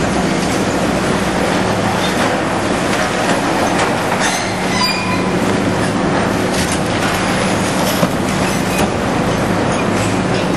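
Heavy demolition machinery running steadily with a low engine hum and scattered clanks, breaking down concrete and steel stands, with a brief high metallic squeal about four to five seconds in.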